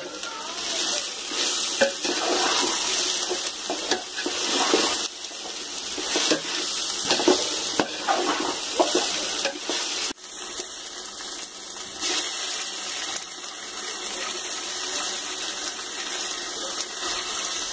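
Onions, green chillies and mint frying in oil in an aluminium pot, sizzling, with a perforated metal ladle scraping and stirring against the pot for the first ten seconds or so. After a short break about ten seconds in, the sizzle goes on more steadily with few scrapes.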